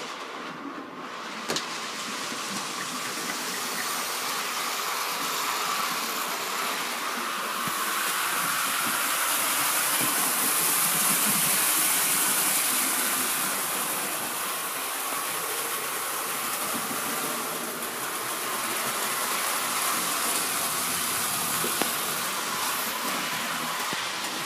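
Model A4-class locomotive and coaches running on the layout's track: a steady hiss and rumble of the small electric motor and wheels on the rails, swelling to its loudest about halfway through as the train passes close, then easing.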